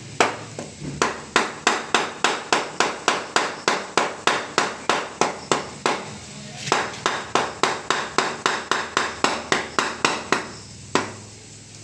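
Fast, even knocks, about three or four a second, of a hand-held pounder striking a knife set into a banana bunch's stalk to break the hands of green bananas free. The knocking stops briefly about six seconds in, runs on again, and ends with one last knock.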